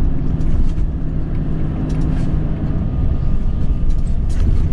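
In-cab sound of a Volvo FM 500 truck's 13-litre inline-six diesel pulling at about 1,100 rpm, a steady low drone mixed with road noise.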